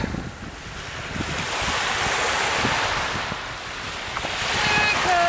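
Small wave washing up the sand at the water's edge: a hiss that swells to a peak about halfway through and then eases off as it draws back, with wind on the microphone. A voice calls out near the end.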